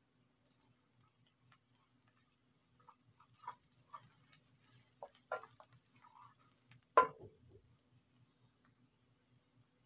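Wooden spatula stirring and scraping spices and chopped onion frying in oil in a metal frying pan, with a faint sizzle. Scattered scrapes and taps build up, and a sharp knock about seven seconds in is the loudest sound.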